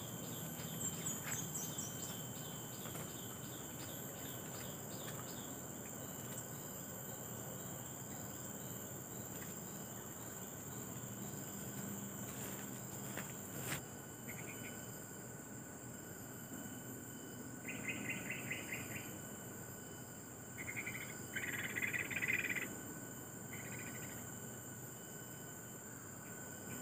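A steady, high insect chorus runs throughout, with small birds calling over it: a run of short, falling chirps in the first few seconds, then several short bursts of rapid, chattering notes in the second half, the loudest about three quarters of the way through.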